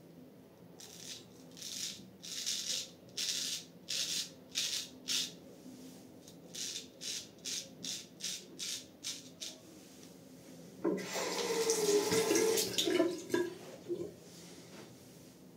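Ch. Suy Louvain full hollow-ground straight razor scraping through lathered stubble in short, rasping strokes, about two a second. About eleven seconds in, a tap runs briefly and more loudly for a couple of seconds.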